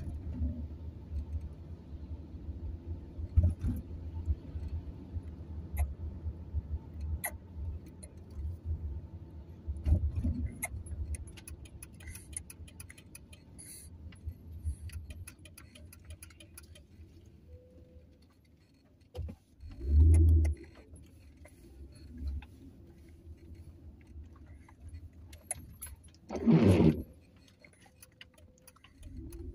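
Car interior on the move: a low engine and road rumble that eases off in the second half, with scattered light clicks and rattles. A loud thump comes about two-thirds of the way through, and a short loud burst of noise near the end.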